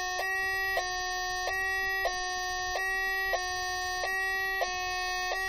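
Homemade two-tone electronic French siren, two oscillators switched back and forth by an astable multivibrator, alternating between two buzzy tones about every two-thirds of a second through the small speaker of a homemade signal tracer. Each changeover carries a click, caused by the switching of the oscillators.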